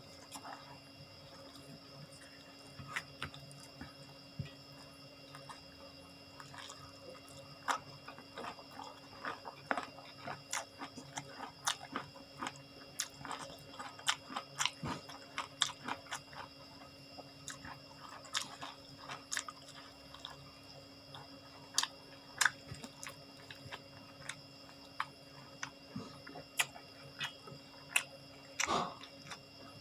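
Close-miked chewing and biting of raw round eggplant lalapan: irregular crisp crunches and wet mouth clicks, with a steady faint hum underneath.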